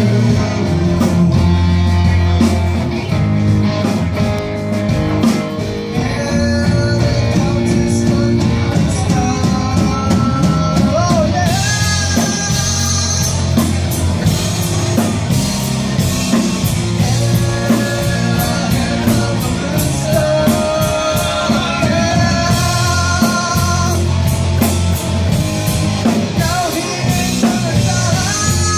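Live rock band playing: two electric guitars, an electric bass and a drum kit, with a male lead vocalist singing over them.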